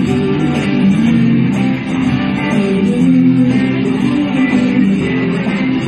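Live band playing amplified electric and acoustic guitars through small portable amplifiers, a continuous run of music.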